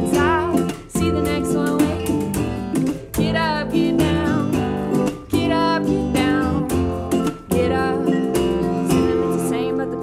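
Acoustic band playing live: strummed acoustic guitar over upright bass and a mallet keyboard, with a singing voice.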